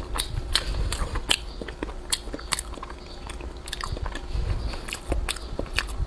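Close-miked chewing of a soft, flaky custard-filled pastry with a mochi layer: many small wet clicks and smacks of the mouth, scattered irregularly.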